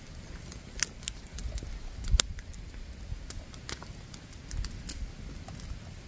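Campfire crackling: scattered, irregular pops and snaps, one sharper snap about two seconds in.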